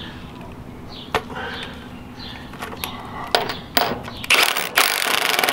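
Cordless Milwaukee impact driver tightening a nut onto a rack bolt: a few scattered knocks and clicks as the socket is fitted, then the driver's rapid hammering starting about four seconds in.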